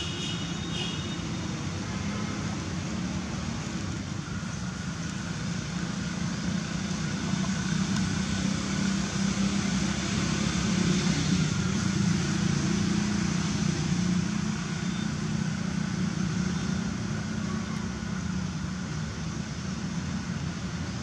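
Steady road-traffic rumble, swelling as a vehicle passes about halfway through, then easing back.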